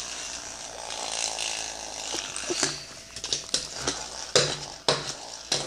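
Small plastic wheeled toy clattering on a wooden floor while being handled: a rustling hiss with a scattering of sharp clicks and knocks, several in quick succession in the second half.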